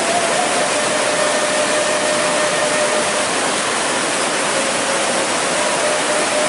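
Water pouring through the openings of a concrete weir and churning into the river below: a loud, steady rush.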